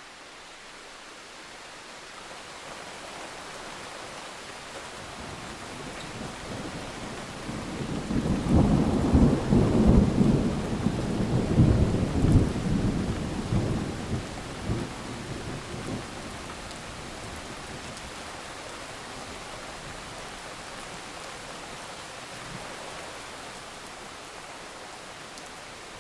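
Steady rain hiss with a rolling peal of thunder that builds about a third of the way in. The thunder rumbles low and loud in several surges for some seconds, then fades back into the rain.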